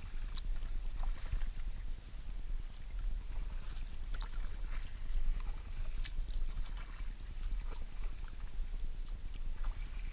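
Kayak paddle strokes in calm water: the blades dipping with small splashes and drips, over a steady low rumble.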